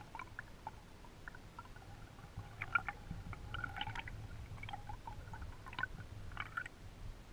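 Underwater sound of a spring-fed stream picked up through a GoPro's waterproof housing: a steady low water rumble with scattered faint clicks and ticks.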